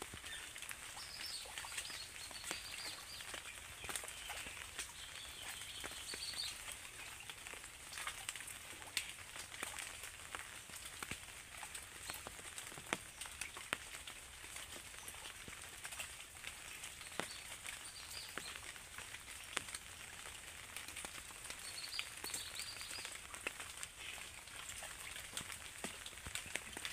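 Scattered raindrops and drips pattering faintly on pond water and leaves, making many small ticks. Small birds chirp a few times.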